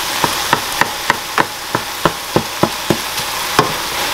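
Ground beef sizzling as it fries in a stainless steel skillet, stirred with a wooden spatula that knocks against the pan about three times a second.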